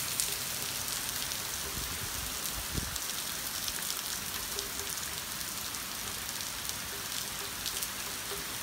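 Heavy rain pouring steadily onto a wet driveway, street and lawn: a constant, even hiss. A brief low rumble rises under it about two to three seconds in.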